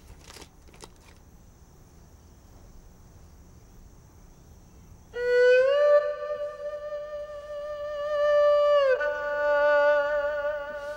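Background music: after a few seconds of quiet room tone, a solo melody instrument, tagged as a bowed string, comes in suddenly about five seconds in. It holds one long note with a slight vibrato, then moves to a second long note near the end.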